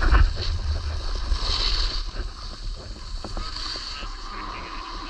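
Wind buffeting the microphone over the hiss of sliding down a snowy ski slope. The hiss swells and eases.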